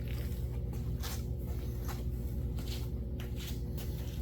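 Scattered light clicks and taps of carburetor parts and hoses being handled, over a steady low hum.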